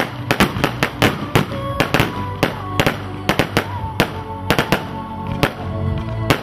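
Black Bomber fireworks cake firing shells in quick succession: sharp bangs, about two or three a second at uneven spacing, over background music.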